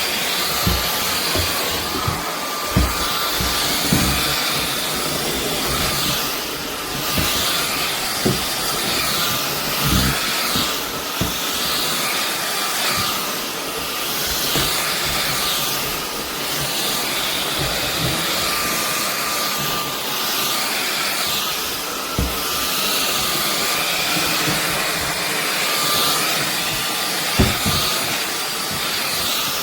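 SunSare X7A cordless stick vacuum cleaner running steadily: a continuous hiss with a steady whine, and scattered low knocks throughout.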